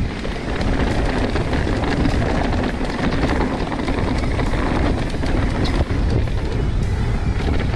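Mountain bike rolling fast down a dirt trail: steady tyre rumble with small knocks and rattles from the bumps, under heavy wind buffeting on the microphone.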